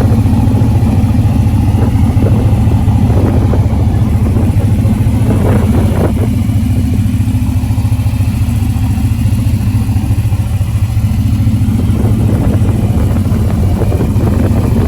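A vehicle engine running steadily, a loud, constant low rumble.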